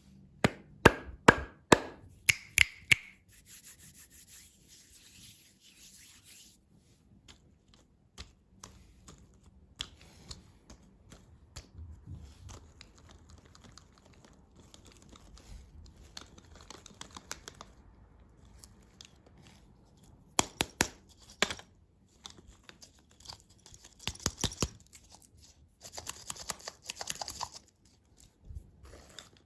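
Candy packaging being handled and opened by hand. A quick run of sharp clicks and taps comes in the first three seconds, then quiet rubbing, with more taps and bursts of wrapper tearing and crinkling in the last third.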